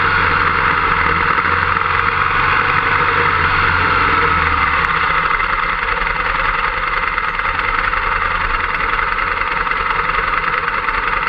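Motorcycle engine running close to the microphone as the bike rolls slowly through the paddock, then idling once stopped; the low rumble changes to a steady idle pulse about halfway through.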